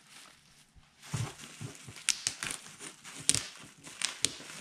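Plastic bubble wrap crinkling and rustling as it is handled and pressed around a game console, with irregular sharp crackles from about a second in.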